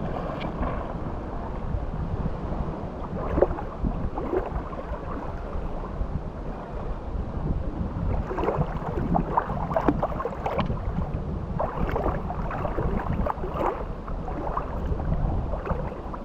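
Wind rumbling steadily on the microphone over the wash of the sea, with brief faint higher sounds scattered through the second half.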